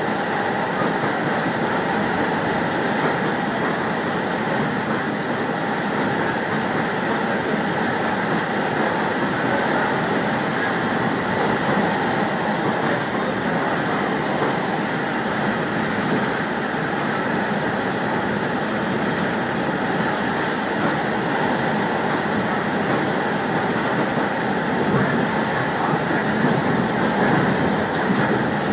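Train running along the track, heard from inside the leading car: a steady rumble of wheels on rail, rising slightly near the end.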